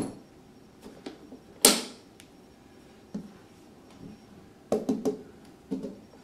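Handling noise from a folding solar panel being stood up and touched by hand: scattered sharp clicks and knocks, the loudest a sharp crack about a second and a half in and a quick run of three knocks about five seconds in.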